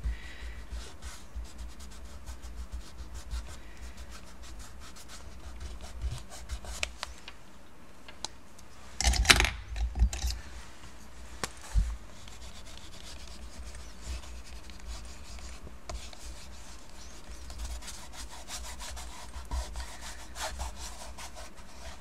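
Wax crayon sticks rubbed back and forth over a painted paper page: a run of quick, scratchy strokes, with a louder handling noise lasting about a second about nine seconds in.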